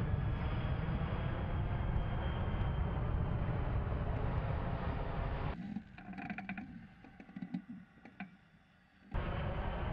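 Steady rumbling jet noise of a C-17 transport aircraft flying past, mixed with wind on the microphone. About five and a half seconds in it cuts to a much quieter stretch with scattered clicks and knocks, and the rumble returns shortly before the end.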